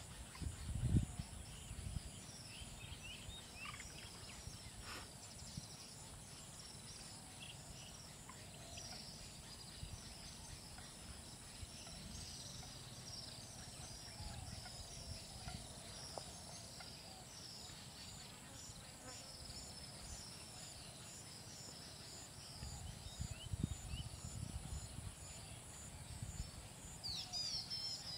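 Open-country ambience: a steady high insect drone with many short bird chirps repeating throughout. Low rumbling bumps come at the start and again near the end.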